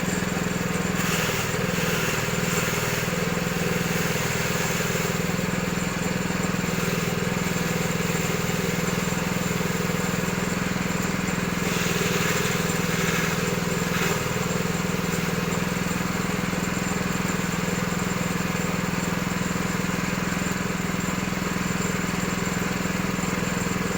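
Coconut husk shredding machine running steadily with an engine-like drone, turning noisier and brighter for a couple of seconds about a second in and again about halfway through.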